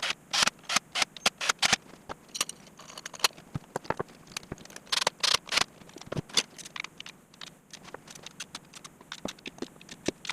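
Metal tools and engine parts clicking, knocking and scraping at irregular intervals as the valve cover is refitted, with quick runs of clicks in the first couple of seconds and again about five seconds in.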